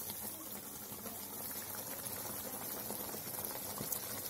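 Ash gourd and chana dal curry, thinned with water, bubbling steadily in a pan at the boil.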